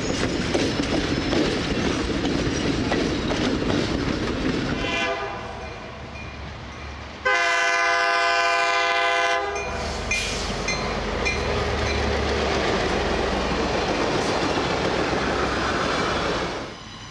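Passenger train cars rolling past with wheel clatter. Then a diesel locomotive sounds its chime air horn in one blast of about two seconds, and its engine rumbles as the train approaches and its passenger cars pass.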